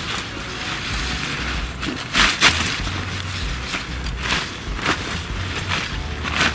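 Coated Oxford tent fabric rustling and swishing in several brief bursts as it is pulled up and gathered around the folded tent poles, over a steady low rumble.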